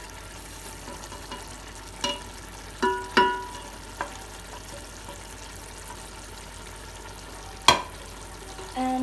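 Onion-tomato masala frying in oil in a pot, a steady sizzle, with the dry spices just added; a spoon stirring it clinks against the pot a few times, with one sharper, louder clink near the end.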